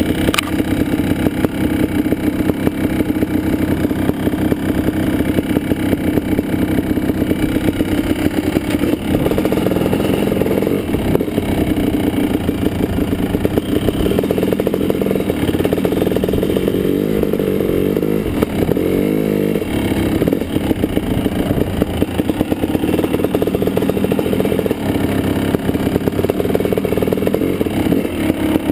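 Kawasaki KX500 dirt bike's 500 cc two-stroke single-cylinder engine running while riding, its pitch rising and falling with the throttle for a few seconds in the middle.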